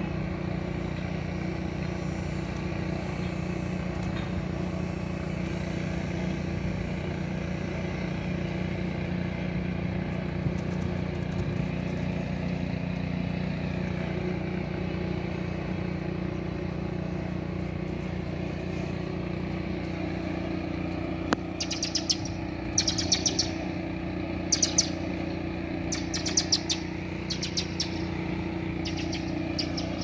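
Northern mockingbirds giving clusters of short, high chirping calls, in the last third, over a steady low mechanical hum.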